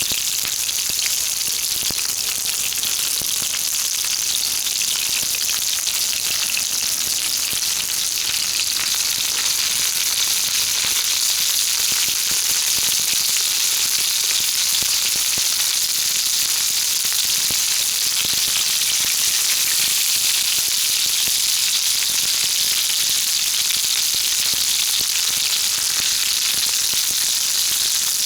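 Jumbo shimeji mushrooms sizzling in olive oil over a wood fire: a steady hiss with many small crackles and pops.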